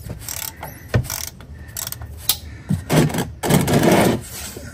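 Hand ratchet clicking as its handle is swung back and forth, turning a cap-type oil filter wrench to unscrew the oil filter once it has broken loose. A few separate clicks come first, then a longer stretch of ratcheting in the second half.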